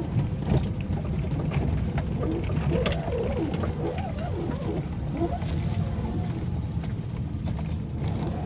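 Maruti Suzuki 800's 796 cc three-cylinder petrol engine and road noise, heard inside the cabin while driving on a rough unpaved road, with occasional clicks. A bird calls with wavering coos over it for a few seconds in the middle.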